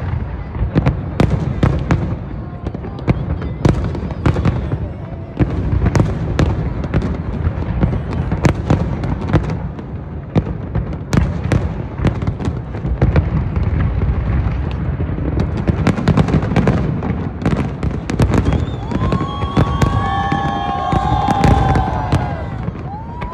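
Fireworks display: a dense run of sharp bangs and shell bursts over a steady low rumble of continuous launches, with a few high wavering tones near the end.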